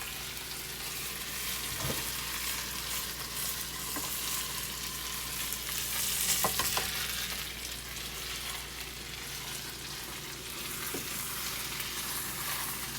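Meat frying in a pot: a steady sizzling hiss, with a few light ticks about two seconds and six and a half seconds in.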